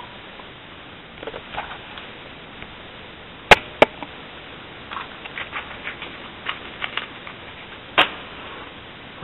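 A scatter of light ticks and taps, with three sharp clicks standing out: two close together about three and a half seconds in, and one louder one about eight seconds in.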